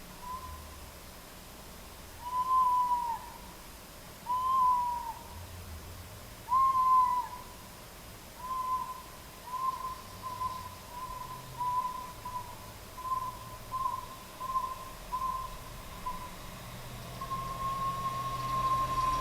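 An owl hooting: clear whistled notes at one pitch. It starts with three longer notes that bend slightly, then a run of short notes about two a second, and ends with one long held note.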